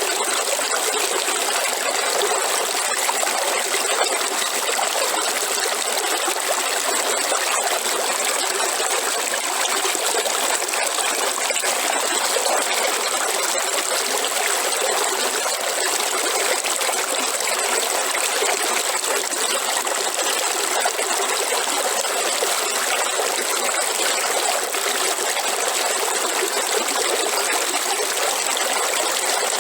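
River water flowing and trickling over rocks, a steady rushing with little low rumble.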